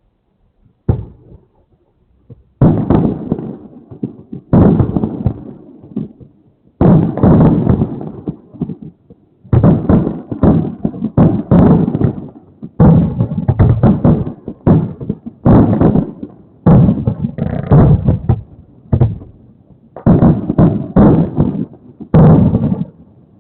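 Fireworks shells bursting in quick succession: a string of sharp booms, each with a rolling echo that fades, coming about once a second with a few close doubles, heard through a security camera's outdoor microphone.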